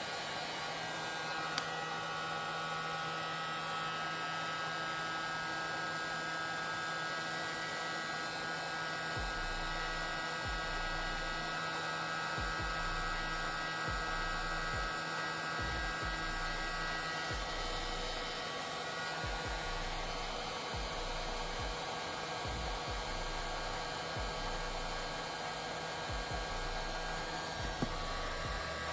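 Handheld heat gun on its low setting running steadily, blowing hot air to shrink heat-shrink tubing, with a faint steady whine. Irregular low bumps join in from about a third of the way through.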